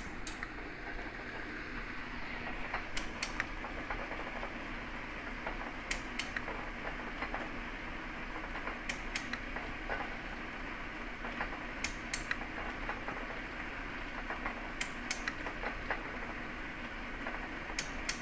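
Metal shaper running, its tool taking a heavy cut across a torch-cut steel edge, with a steady machine noise and a pair of sharp clicks about every three seconds.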